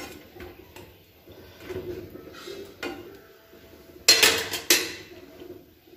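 Steel spoon stirring chicken curry in a metal frying pan, scraping with light clinks, then a quick run of several loud metallic clanks about four seconds in.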